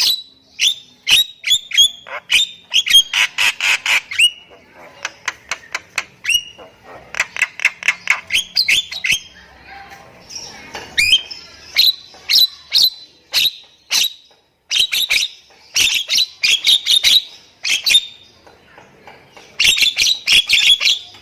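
Nias hill myna singing: rapid runs of loud, sharp whistles, squawks and clicking notes, in bursts with short pauses between them.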